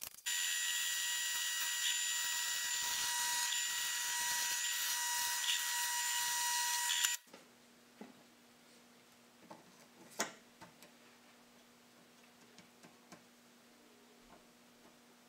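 Shop vacuum running with a steady whine, cutting off suddenly about seven seconds in. Then only a faint low hum and a few light knocks.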